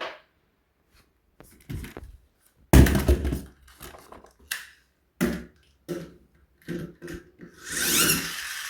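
A plastic toy being handled, with a string of separate knocks and clatters. Near the end a steady mechanical whirr starts, like a toy car's gears spinning.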